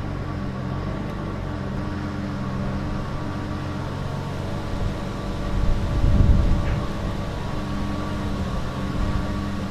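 A vehicle engine running steadily at idle, swelling louder for about a second around six seconds in.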